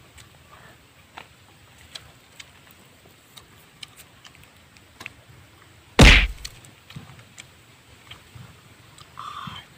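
A single loud thump about six seconds in, over faint scattered clicks, with a short higher-pitched sound just before the end.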